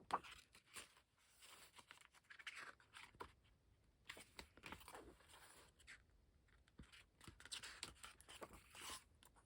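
Faint rustling and soft clicks of photobook pages being handled and turned, with several light swishes spread through the stretch.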